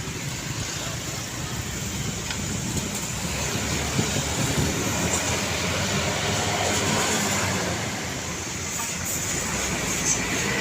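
Heavy road traffic going past close by: a steady rumble of truck engines with tyre and wind noise.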